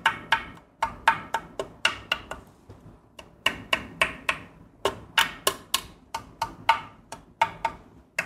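Keys being pressed on a Keychron Q1 Pro aluminium-cased mechanical keyboard: a quick, irregular run of clacks, each followed by a short metallic ring. The ring is the case ping that the reviewer goes on to confirm the board has.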